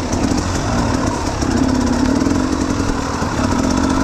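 Enduro dirt bike engine running at a fairly steady pitch, with only small changes in throttle.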